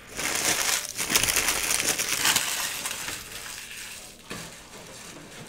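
Crinkly foil trading-card pack wrappers being crumpled and scooped up by hand: a dense crackling that is loudest in the first couple of seconds and dies away after about four seconds, followed by a single light click.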